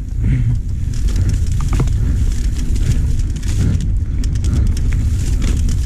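Mountain bike ridden along a rough dirt singletrack: a steady low wind rumble on the microphone, with scattered rattles and clicks from the bike and its tyres over the bumpy ground.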